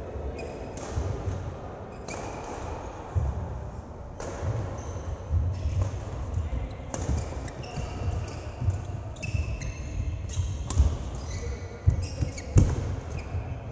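Players on an indoor court during a match: irregular thuds of a bouncing ball and feet, with short high squeaks of shoes on the floor and the room's echo. The loudest thuds come near the end.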